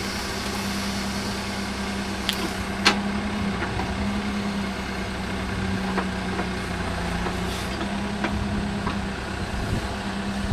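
Backhoe loader's diesel engine running steadily while digging, with a few short knocks.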